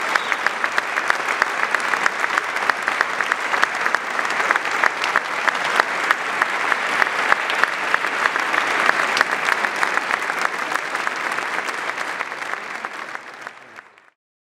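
Audience applauding: dense, steady clapping that fades and then cuts off near the end.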